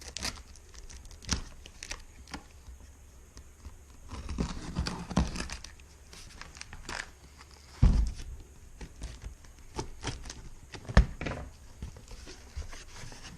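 Packaging being handled as a filter coffee maker is unboxed: paper and plastic rustling and crinkling, with scattered knocks, a heavy thump about eight seconds in and a sharp knock near eleven seconds.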